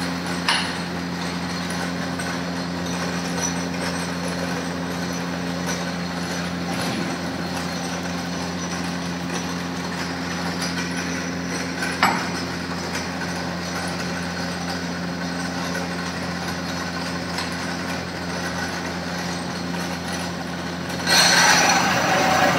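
Pedestal drill press motor running with a steady hum, with a sharp knock about half a second in and another about twelve seconds in. Near the end a louder, harsher noise sets in as the drill is fed down into the workpiece.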